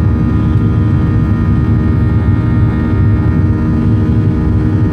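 Boeing 737-800's CFM56-7B turbofan engine at takeoff thrust during the initial climb, heard from inside the cabin over the wing. It makes a steady, loud rumbling drone with several steady high tones over it.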